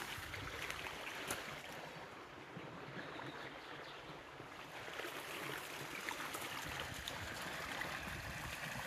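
Small woodland stream running, a steady rush of water.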